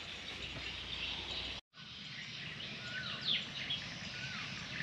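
Outdoor background hiss with a few short bird chirps in the second half. The sound cuts out completely for a moment about a second and a half in.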